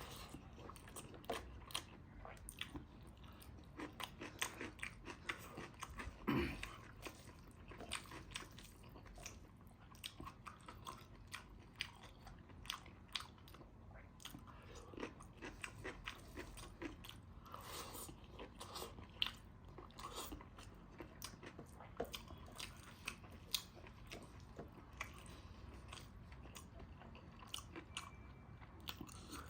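Close-up mouth sounds of a person eating: chewing, biting and crunching food, with many short wet clicks and a few louder crunches about six seconds in and near the twentieth second.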